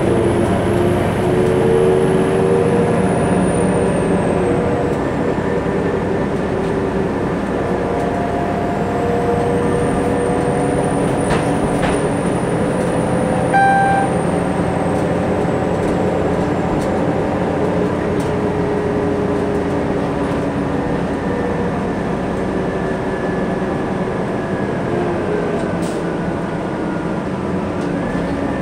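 Inside a 2003 New Flyer D60LF articulated diesel bus underway: the Detroit Diesel Series 50 engine and Allison transmission running steadily under road noise, with humming tones that drift up and down as the bus changes speed. A short chime sounds about halfway through.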